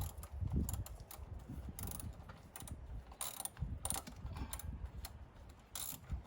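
Wrench tightening a car battery terminal clamp bolt: short, irregular metallic clicks as the nut is worked down in strokes.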